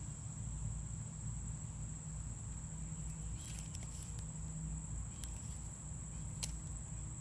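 Steady high-pitched insect trill, typical of crickets, over a low background hum, with a few faint clicks about halfway through and again near the end.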